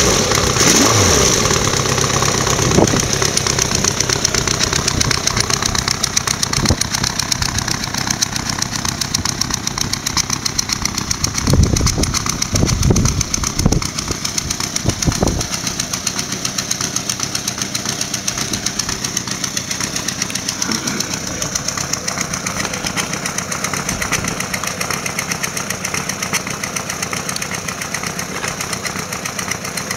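Suzuki GSX-R1100 inline-four motorcycle engine idling steadily, with a few low thumps about halfway through.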